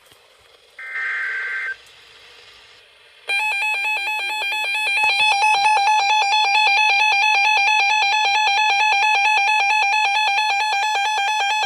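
Emergency Alert System broadcast: a one-second burst of the coded data header, then the EAS attention tone, a harsh steady electronic tone held for about nine seconds.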